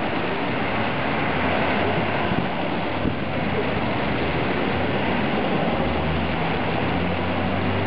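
Small ground-level fountain jets splashing steadily onto drain grates in paving, a continuous hiss of falling water. A low vehicle engine rumble runs underneath, stronger in the second half.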